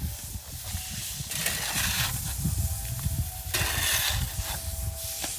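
A hose sprays water over freshly laid concrete in bursts, washing the surface paste off to expose the aggregate, over a low steady rumble.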